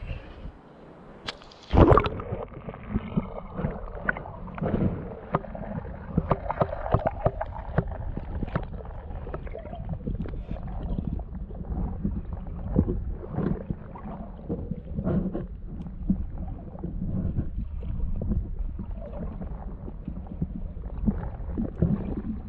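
Muffled underwater sound around a submerged camera: low rumbling and sloshing water with frequent small knocks and clicks, and one loud thump about two seconds in.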